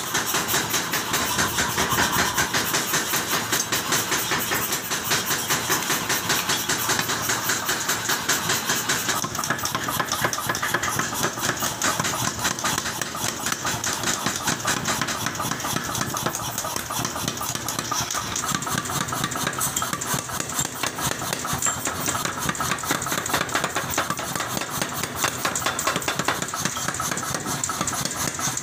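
A 50 kg power hammer pounding a red-hot steel hoe blank in rapid, steady blows, with the hammer's motor running under them.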